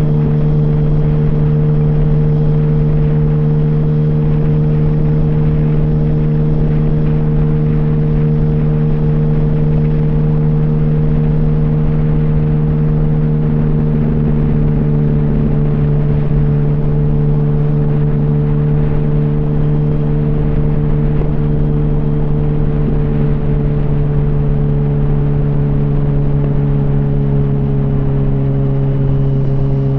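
Yamaha R1 inline-four engine running through an open exhaust with the baffles removed, held at a steady engine speed with an even, unchanging note that dips slightly in pitch near the end.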